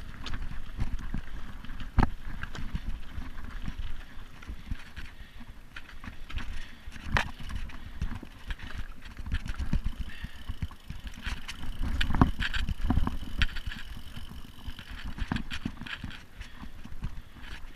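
Mountain bike rolling over a rough dirt forest trail: a constant low rumble from the tyres with irregular sharp knocks and rattles from the bike's frame, chain and parts as it hits roots and bumps.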